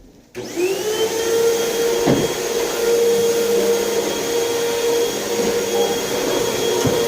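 Vacuum cleaner switched on about a third of a second in, its motor whine rising briefly as it spins up and then running steadily at full speed.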